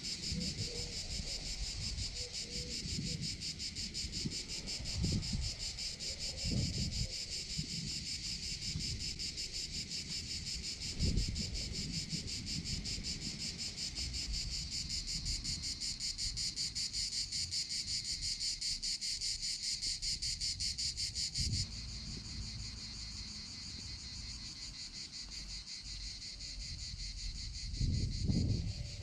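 Dense chorus of insects in summer heat, a steady fast pulsing buzz that drops slightly and changes abruptly about two-thirds of the way through, with occasional gusts of wind rumbling on the microphone.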